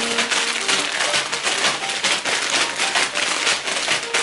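Foil snack-chip bags crinkling as they are picked up and shuffled around, a dense rapid crackling rustle, over faint background music.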